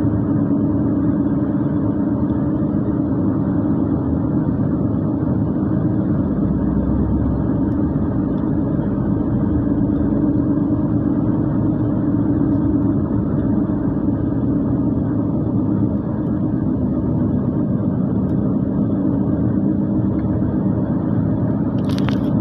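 Car driving, a steady hum of engine and tyre noise heard from inside the cabin.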